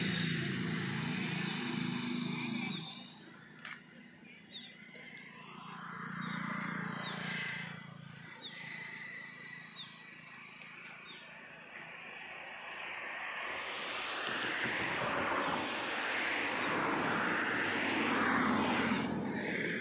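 Outdoor ambience. A motor vehicle's engine hum fades out in the first three seconds, birds chirp faintly in the middle, and a broad rushing noise builds toward the end.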